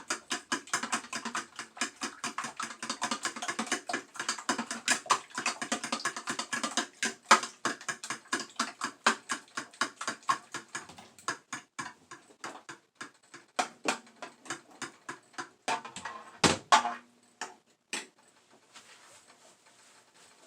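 Eggs and milk being beaten in a bowl: a utensil clicking rapidly against the bowl at several strokes a second, slowing and thinning out near the end, with one louder knock before it stops.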